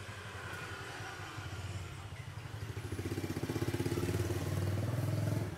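A motor running with a fast, even pulse, growing louder from about halfway through and dropping off suddenly near the end.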